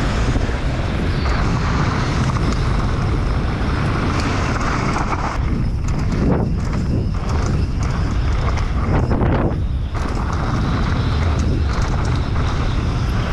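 Wind rushing over the microphone and knobby tyres rolling fast on a dirt trail as a Specialized Demo downhill mountain bike descends, with clattering knocks of the bike over rough ground around the middle.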